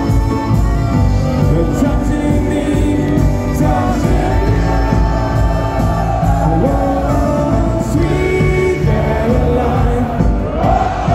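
A pop song played loud through the arena sound system as walk-on music, with a crowd singing along.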